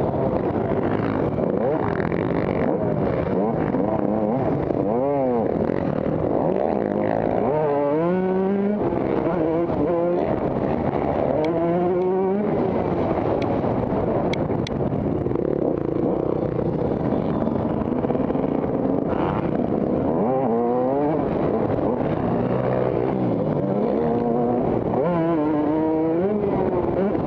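Motocross dirt bikes running on a track, several engines at once, their pitch repeatedly rising as the throttle is opened and dropping at gear changes or when the throttle is closed.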